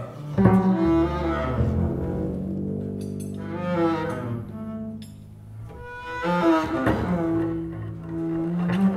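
Double basses bowed in free improvisation: long held low notes with sliding, scraping overtones. The sound dips quieter around the middle and swells again after about six seconds.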